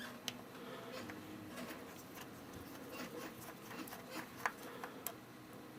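Faint scattered clicks and light scratching of a small precision screwdriver working a tiny Phillips screw out of an iPod Touch's frame, with a sharper click about four and a half seconds in.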